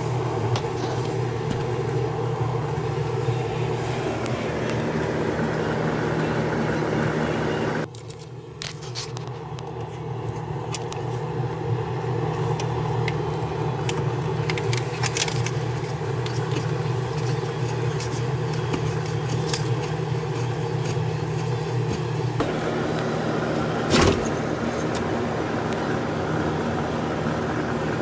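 A steady low mechanical hum with scattered clicks and light scrapes of hand tools. The hum drops away abruptly about eight seconds in and builds back, and a single sharp knock comes near the end.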